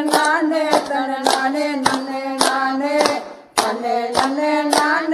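Tamil folk song playing: a steady drone and a bending melody over sharp clapped beats about twice a second. The music fades and breaks off for about half a second a little past halfway, then comes back on the beat.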